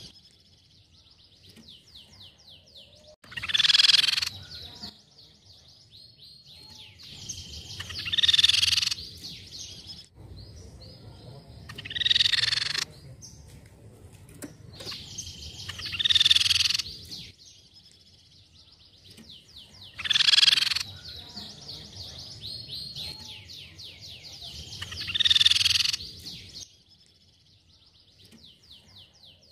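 Crescent-chested babbler (tepus pipi perak) calling: six loud calls of about a second each, about four seconds apart, with a fainter fast trill of rapidly repeated high notes between them.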